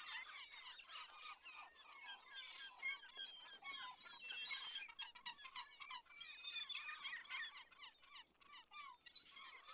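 Faint chorus of many birds calling at once, a dense tangle of short chirps and whistled notes rising and falling in pitch.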